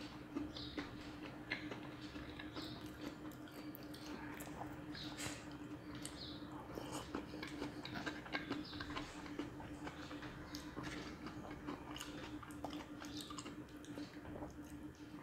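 A person chewing and eating ripe jackfruit bulbs by hand: wet mouth sounds with many small irregular clicks, over a faint steady low hum.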